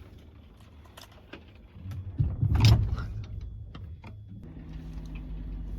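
Train carriage giving a loud rumbling jolt about two to three seconds in, then a steady low machinery hum sets in, consistent with the train being shunted onto the Qiongzhou Strait rail ferry.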